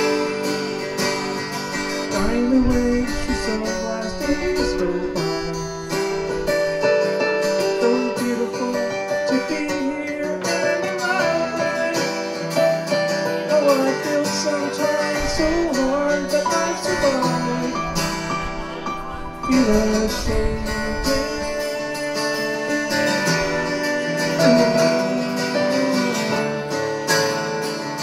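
Acoustic guitar strummed together with an electric keyboard, playing a live instrumental passage of a song.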